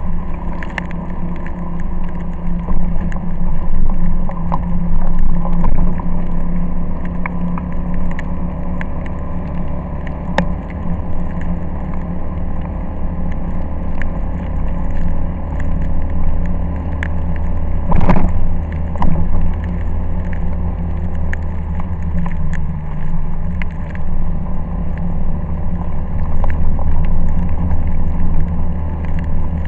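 Cargo moped's small engine running steadily on the move, with tyre hiss from the wet road. Scattered ticks run through it, and there is a louder knock about eighteen seconds in.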